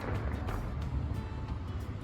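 Music, with the crackling and low rumble of fireworks bursts fading away.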